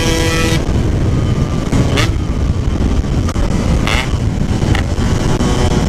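Yamaha RX-King's 135 cc two-stroke single engine holding a steady high note, which drops away about half a second in as the throttle closes. After that there is heavy wind rumble and road noise, with a few short knocks.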